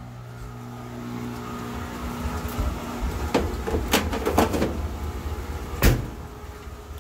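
A clothes dryer's lint screen being handled and slid back into its slot, with plastic and metal knocks and rattles in a cluster around the middle and one sharp knock near the end. A steady low hum runs underneath.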